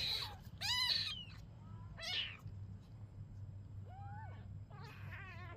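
A kitten meowing repeatedly, about five short, high-pitched cries, the loudest about a second in.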